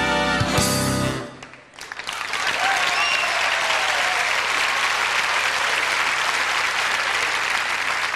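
Recorded stage-entrance music cuts off about a second in, then a large theatre audience applauds steadily.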